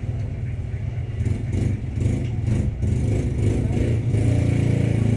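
A steady low engine drone, like a motor vehicle idling, that swells a little near the end. A few light clicks come from the handset being handled, between one and three seconds in.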